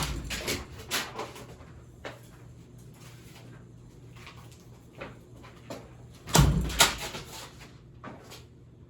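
Running Hampton Bay Littleton ceiling fan, its worn motor giving a steady low hum, with the spinning blades slapping and knocking against a paper owner's manual thrown into them: a quick run of hits in the first second, a louder burst about six and a half seconds in, and one more knock near the end.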